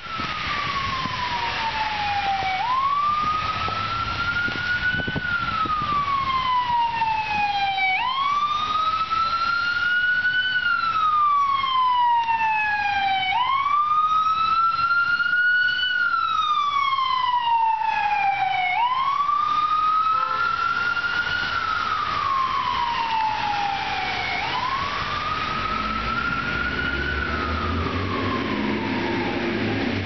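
Emergency vehicle siren sounding a wail: the pitch climbs quickly, then slides slowly down, over and over, about every five and a half seconds. Fainter overlapping sweeps run above it, and a low vehicle rumble comes in near the end.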